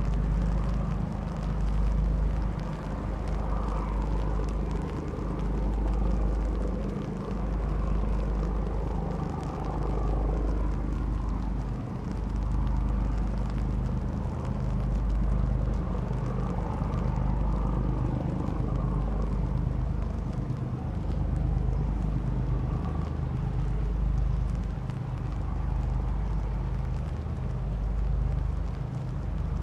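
A sand-carrying river boat's engine running steadily, a low, even drone.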